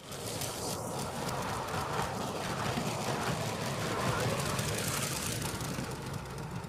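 Lego train running past on plastic track: a steady whirring and clatter of its motor and wheels, loudest about halfway through as the carriages go by.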